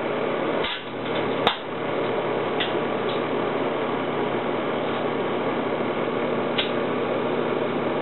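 Microwave oven running with a steady hum, a DVD turning inside; one sharp snap about a second and a half in and a few fainter ticks later.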